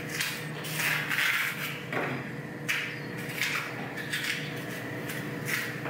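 Plantain being peeled by hand, the skin pulled away in strips: a series of short scraping strokes, about one a second, over a faint steady hum.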